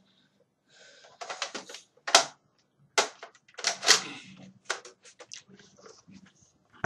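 Plastic clicks, clacks and rattles of a Nerf Retaliator blaster being handled, in an irregular run of sharp bursts.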